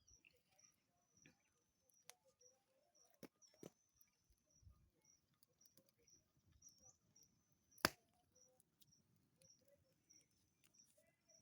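Near silence: a faint, high-pitched insect chirp repeating about twice a second, with a few sharp clicks, the loudest about eight seconds in.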